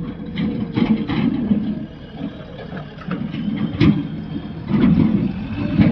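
Heavy machine's diesel engine running unevenly, with a few sharp knocks or clanks, the loudest about four seconds in and at the end.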